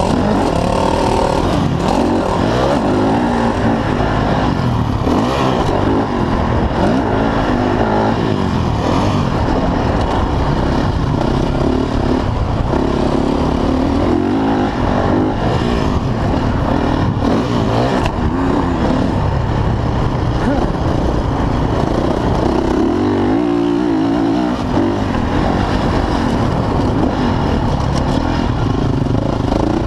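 Motocross dirt bike engine heard from the bike's own onboard camera, revving up and down as the rider works the throttle and gears around the track, with wind rushing over the microphone. The throttle eases off briefly about three-quarters of the way through.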